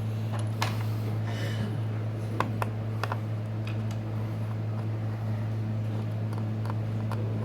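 Steady low electrical hum under faint scattered clicks and a brief soft rustle, small handling sounds as old adhesive is picked and pulled off a phone's frame.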